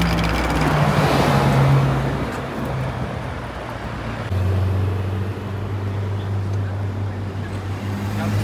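A car drives past close by, its engine note falling slightly as it goes, followed by a steady low engine drone from a car running nearby.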